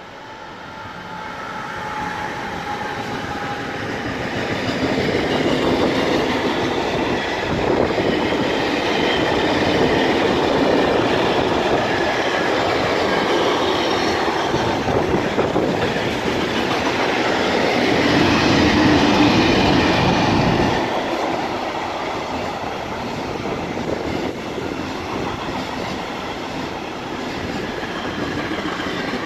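A freight train passes: a DB class 193 Vectron electric locomotive followed by a long string of container and tank-container wagons, wheels running and rattling on the rails. It grows louder over the first several seconds, is loudest about two-thirds of the way through, then eases to a lower steady rumble as the wagons keep rolling by.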